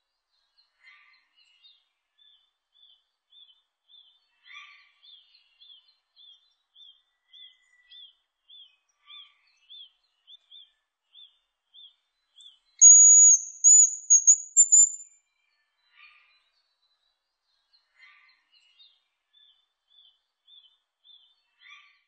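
Hazel grouse song: one thin, very high whistle about two seconds long, about halfway through, held and then breaking into a short rising twitter. Behind it, a faint short note repeats about twice a second.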